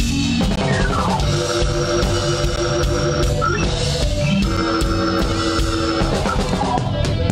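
Live blues-rock band: an electric guitar plays long held lead notes, with a falling slide about a second in, over a drum kit and bass guitar.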